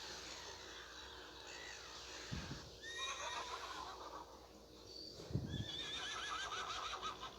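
Horse whinnying twice: a short quavering neigh about three seconds in and a longer wavering one near the end, with low thuds just before each.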